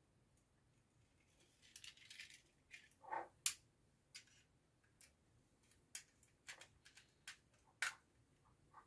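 Faint, scattered clicks and scrapes of a small screwdriver working the terminal screw of a plastic relay socket as a wire is fitted, with a brief rustle about two seconds in.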